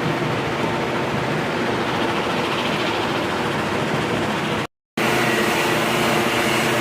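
Angle grinder running steadily against the steel of a leaf spring, grinding down the weld. The sound cuts out for a moment about five seconds in and comes back a little brighter.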